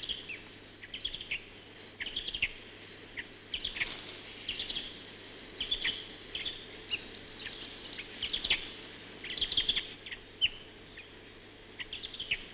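Birds chirping and calling, many short high-pitched chirps in quick, irregular succession over a faint steady hiss.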